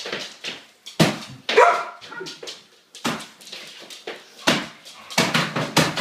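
Dog barking several times over repeated sharp thuds and cracks of a wall being kicked and struck, with plaster breaking.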